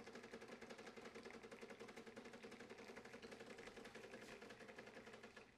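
Decent espresso machine's pump running as a Blooming Espresso shot pours, a quiet rapid pulsing buzz over a steady hum that stops near the end.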